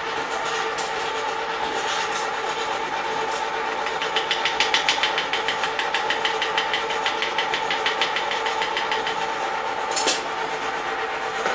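Kettle-style popcorn machines running with a steady motor hum while the oil heats in their pots. From about four seconds in, a fast, even rattle of clicks runs for several seconds, and a single sharp clack comes near the end.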